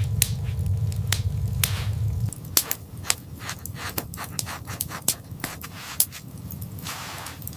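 Wood fire crackling with irregular sharp pops. A low rumble underneath stops suddenly about two seconds in.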